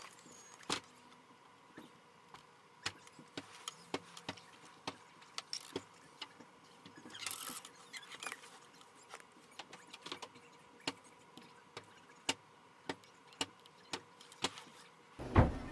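Small sharp clicks and taps of a plastic mini quadcopter and its circuit boards being handled on a wooden table, with a short rustle about seven seconds in.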